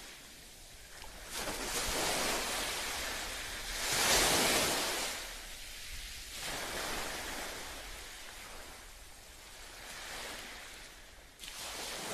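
Small waves washing onto a sandy beach: a hiss of surf that swells and fades every few seconds, loudest about four seconds in.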